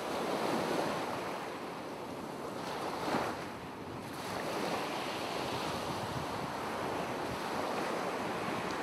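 Ocean surf sound effect: a steady wash of waves, swelling briefly about three seconds in.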